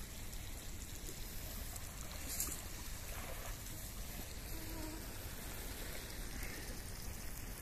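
Steady hiss of fish frying in oil in a pan on a small gas-canister burner.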